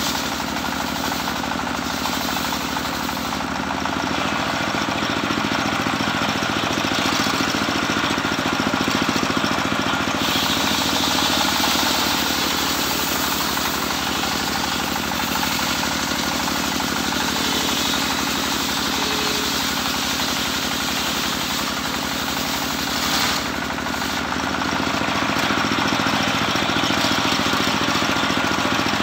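Homemade belt-driven circular sawmill, its engine running steadily while the large blade rips lengthwise through a teak heartwood log. The cutting noise grows sharper about ten seconds in and briefly eases a little before the end.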